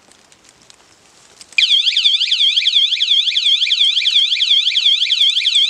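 Motion-sensing bike alarm going off with a loud, high siren that warbles up and down several times a second, starting about a second and a half in, set off by movement of the bike.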